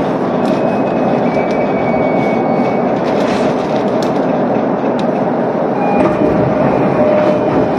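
Electric commuter train heard from inside a carriage as it slows to a halt at a station, a steady rumble with a faint high squeal about a second in and a few clicks. Once it has stopped, the rumble of the standing train's equipment carries on, and a steady tone comes in near the end.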